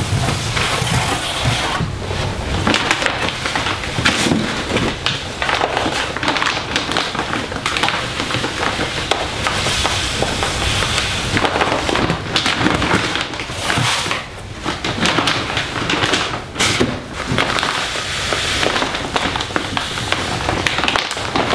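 Cat litter granules pouring from a large bag into a disposable litter box: a steady rushing, rattling hiss with a few brief dips as the pour slows.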